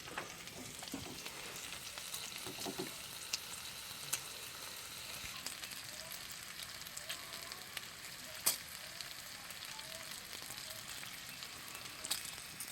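A steady hiss with scattered sharp crackles and clicks, the loudest crack coming about eight and a half seconds in.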